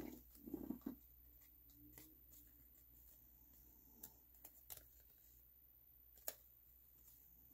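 Near silence with faint handling of cardstock: a few light taps and rustles as paper pieces are slid and positioned on a craft mat.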